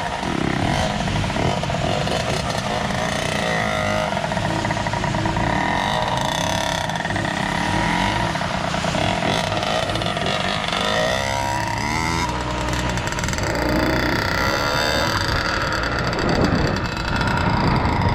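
Two-stroke dirt bike engine running, with the revs rising and falling repeatedly as it is ridden.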